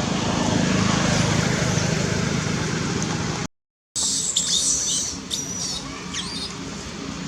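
Steady outdoor rumble and hiss that cuts off abruptly for half a second, then resumes with several short, high-pitched chirping calls that flick up and down in pitch.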